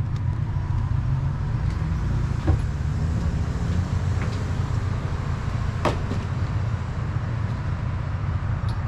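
Motor vehicle on the move: a steady low engine and road rumble, with a couple of short clicks, the louder one about six seconds in.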